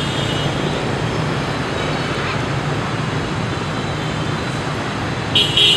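Steady street traffic noise from motorbikes and cars, with a brief high-pitched beep near the end.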